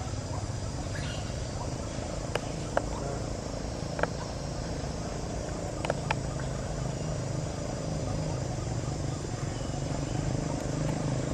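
Steady low hum of a motor running, with a faint high hiss and a few sharp clicks between about two and six seconds in.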